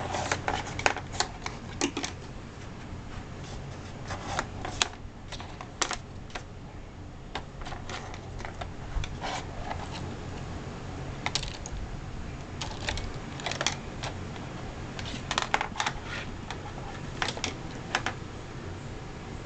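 Irregular light clicks and taps in scattered clusters as a kitten bats a pen around on a desk, the pen knocking against the desktop and the computer keyboard.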